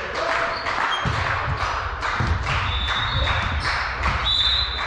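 Sounds of indoor volleyball play: a run of thuds and taps from the ball and players' feet on the court, several a second, with short high squeaks of shoes on the floor about three seconds in and again near the end.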